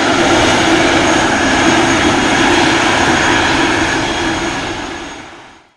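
Antonov An-225 Mriya's six turbofan engines at takeoff power: a steady, loud jet roar with a high whine over it. Near the end it fades away and cuts off.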